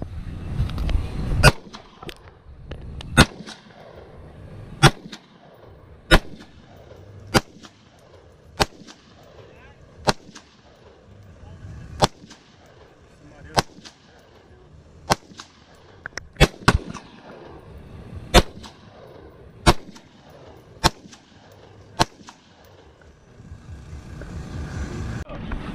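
Rifle fire: about sixteen single shots, roughly one every one to two seconds, each with an echo trailing away after it.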